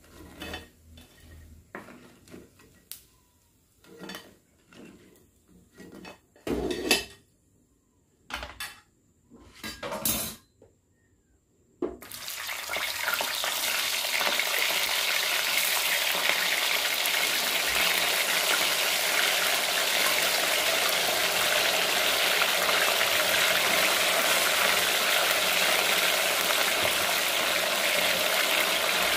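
A metal slotted spoon knocking and scraping against a steel wok in scattered clinks as fried potato fries are lifted out of the oil. About twelve seconds in, this gives way suddenly to the steady, loud sizzle of frozen potato fries deep-frying in hot oil.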